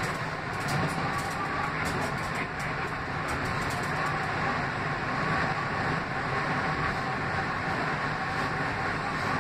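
Interior running noise of an R160B subway car travelling at speed: a steady rumble of the train on the rails.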